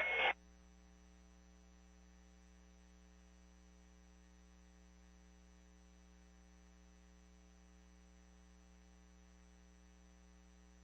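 A faint steady electrical hum on the dispatch radio audio feed, left after a voice transmission cuts off just after the start.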